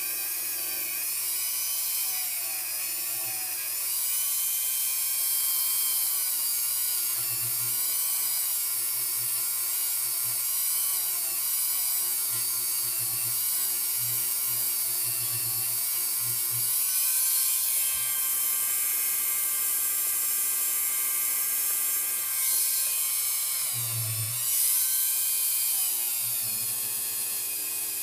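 Small handheld rotary tool fitted with a pad, spinning at high speed as it works a knife's brass bolster. It makes a steady high-pitched whine whose pitch wavers as it bears on the metal.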